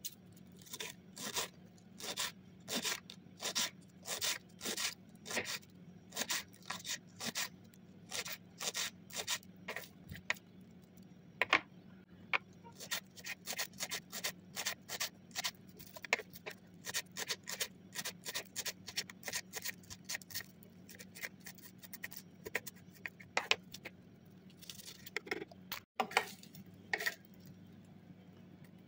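Kitchen knife chopping green onions on a hard, plastic-covered countertop: a long run of sharp chops, spaced out at first and quicker in the middle, with a short pause near the end.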